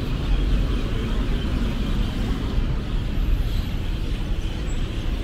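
Steady city street traffic noise: road vehicles running along a busy street, with a constant low rumble.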